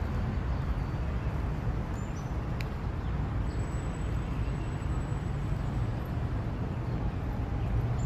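Steady low outdoor rumble, with a sharp click about two and a half seconds in and a couple of faint high chirps.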